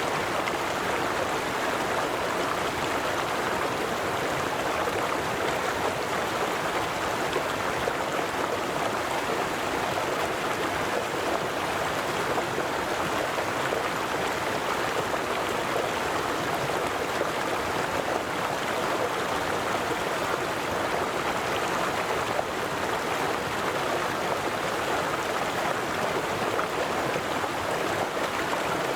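River water flowing steadily over stones, a continuous rushing and gurgling with no breaks.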